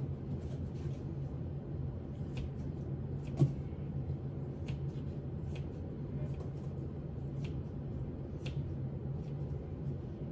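Kitchen scissors snipping through raw steak, a short crisp snip about once a second, over a steady low hum. One louder knock about three and a half seconds in.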